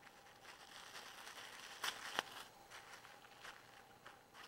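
White plastic mailer bag crinkling as hands handle it to open it, soft rustling with two sharp crackles about two seconds in.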